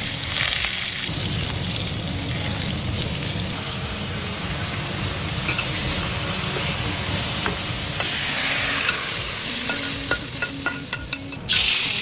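Tofu sizzling as it fries in a hot pan while being stirred, with a steady hiss. Near the end come several sharp taps, then a louder surge of sizzling.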